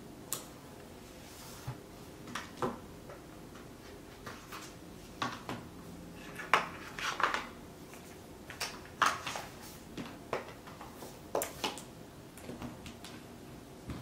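Stylus tapping and sliding on an iPad's glass screen during line-work drawing: irregular sharp taps and short scratchy strokes, a few louder ones a little past the middle.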